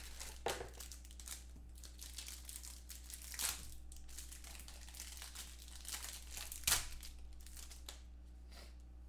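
Trading-card packaging being handled and opened: irregular crinkling, rustling and tearing, with louder crackles about three and a half and nearly seven seconds in.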